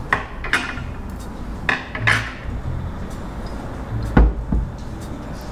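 Metal bar tools clinking against stainless-steel mixing tins as they are put down, four short clatters in the first two seconds or so, then two low thuds about four seconds in as a glass whisky bottle is set down on the wooden table.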